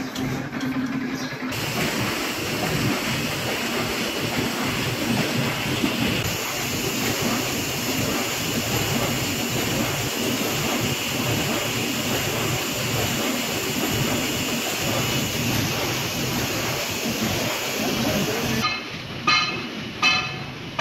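Machinery in a corrugated-cardboard factory running with a steady, dense noise. Near the end it gives way to sharp knocks repeating about every two-thirds of a second.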